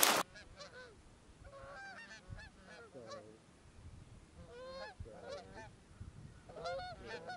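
A flock of geese honking, their calls coming in several bunches. A brief loud burst is cut off at the very start.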